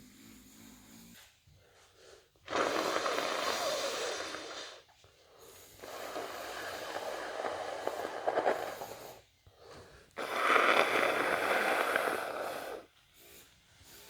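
A person with a head cold blowing their congested nose into a tissue, three long blows of about two to three seconds each.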